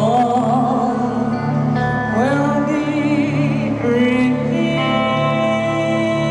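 A woman singing into a microphone over live band accompaniment, scooping up into her notes, then holding one long note through the second half.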